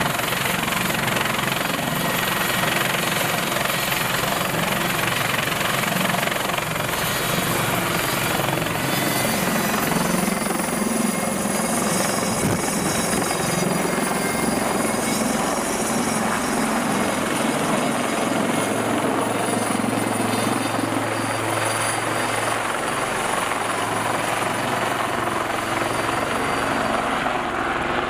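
Helicopter's turbine engines and rotor running steadily, with a thin high turbine whine over the rotor noise, as it lifts off a ship's helideck and hovers.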